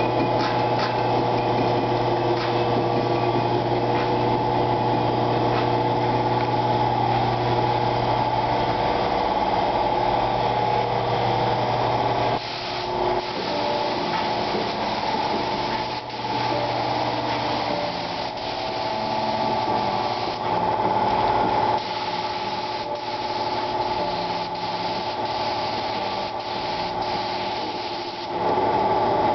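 Steady hum and hiss of compressed-air spray-painting equipment: a gravity-feed paint spray gun on an air hose and the air supply behind it. It is quieter for a stretch in the middle and louder again near the end.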